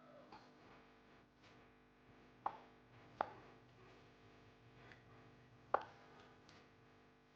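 Quiet guitar background music with a few sharp, lightly ringing clinks, the loudest about two and a half, three and five and three-quarter seconds in.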